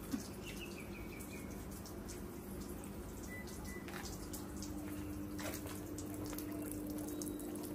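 Faint trickling of water over a steady low hum, with a short run of descending high chirps about half a second in.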